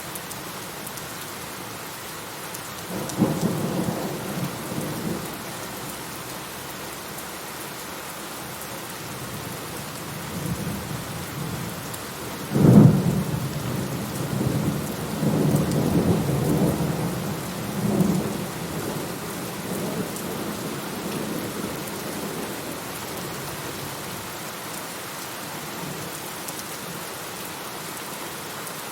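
Steady rain with two peals of thunder: a short rumble about three seconds in, then a louder one that starts suddenly about halfway through and rolls on in rumbles for several seconds.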